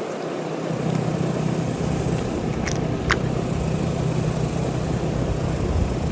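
Steady low mechanical rumble, like an engine running, with two light clicks about three seconds in.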